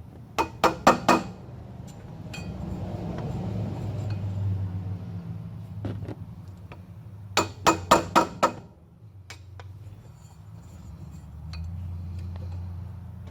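Hammer striking a screwdriver wedged behind a pressed-on washer on a water pump to drive it off, in two quick runs of four or five sharp metallic taps several seconds apart.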